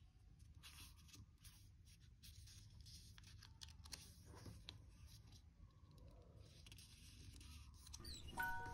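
Faint rustling and crinkling of a sheet of origami paper being folded and creased by hand, with small scattered ticks. Near the end, bell-like music notes begin.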